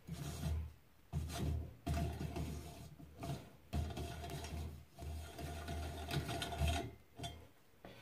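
Steel hand tap being turned by a T-handle tap wrench in a drilled hole in a metal bar, cutting a thread: a series of short rough scraping strokes with brief pauses between turns.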